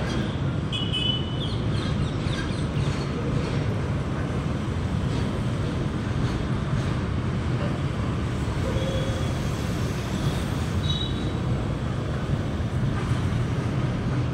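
Freight train of empty container flat wagons rolling past, a steady rumble of wheels on the rails, with a few brief high squeaks about a second in and again about ten seconds in.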